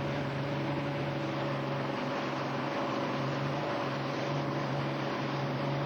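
Fishing boat's motor running steadily under a little throttle, driving the boat forward.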